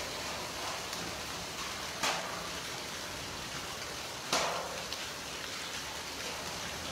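Heavy rain mixed with hail pouring down, a steady hiss, with two sharp knocks about two and four seconds in.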